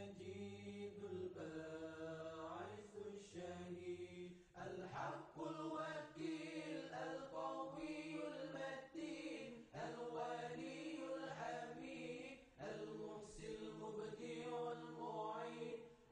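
Background music: a melody of long held notes over a steady low drone.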